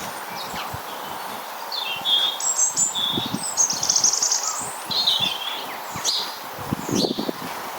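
Small garden songbirds chirping and calling, with a quick high trill about halfway through, over steady outdoor background noise. A few soft low thumps come in among the calls.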